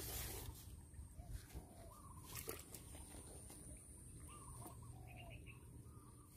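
Faint bird calls: a few short chirping notes over quiet outdoor background.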